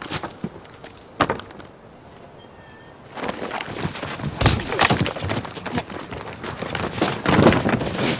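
Two sharp knocks, then from about three seconds in a long, loud stretch of dense clattering and thuds.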